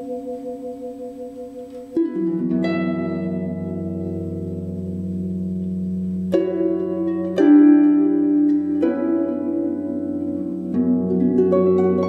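Harp, vibraphone and live electronics playing slow music together. A sustained chord with a regular wavering dies away over the first two seconds. Then plucked harp notes and chords ring on, with new chords struck about two, six and a half, seven and a half, nine and eleven seconds in.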